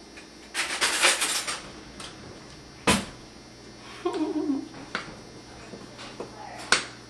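A metal spoon stirring a dry oat-flour and butter crumble in a glass bowl: scraping and rustling about a second in, a sharp clink against the glass near three seconds, and a few lighter taps afterwards.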